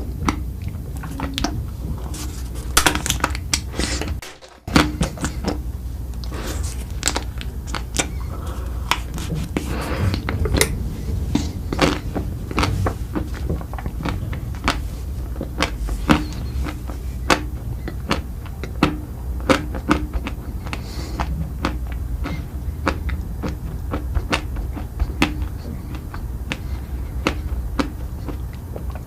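Close-miked eating: a run of sharp crunches and mouth clicks from biting and chewing, over a steady low hum, with a brief break in the sound about four seconds in.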